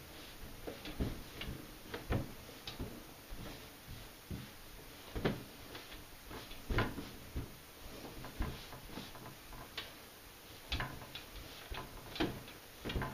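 Hands kneading herb pasta dough on a stainless steel worktop: irregular soft thumps and knocks as the dough is pressed and pushed against the metal, a few of them sharper.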